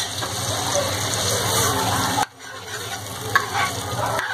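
Boiled rajma and whole black urad dal sizzling in hot tomato-onion masala in a kadhai as a ladle stirs them in and scrapes the pan. The sizzle breaks off suddenly a little past halfway and starts again.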